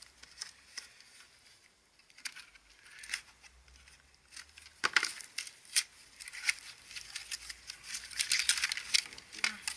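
Small cardboard box being opened by hand: scattered clicks and scrapes as the flap is worked open, a sharp snap about five seconds in, then a dense run of crinkling as a plastic-wrapped pack is pulled out near the end.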